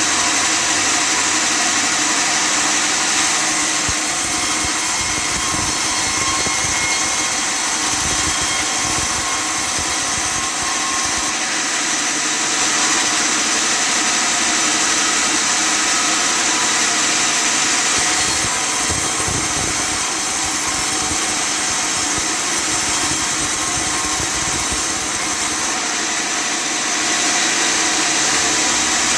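Custom-made table sawmill running steadily while cutting wood: a continuous machine drone with a high whine on top, easing slightly a few times.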